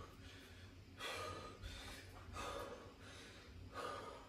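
A man breathing heavily after a round of Tabata burpees, catching his breath: three deep breaths about a second and a half apart.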